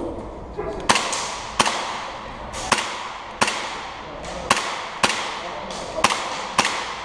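Airsoft pistol firing eight shots in four pairs, two shots on each target. Each shot is a sharp crack with a short echo, and the two shots of each pair come well under a second apart.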